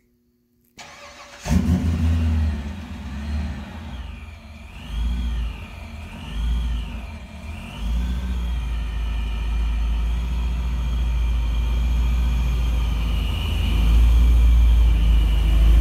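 Supercharged C7 Corvette's 6.2-litre LT1 V8 (V7 YSI centrifugal supercharger) starting about a second and a half in. It is blipped a few times, with a high whine rising and falling with each rev, then settles into a steady rumble that grows louder as the car drives closer.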